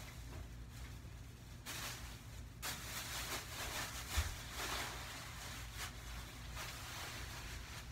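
Rustling and shuffling as things are handled during tidying, in patches, with one dull thump about four seconds in, over a low steady hum.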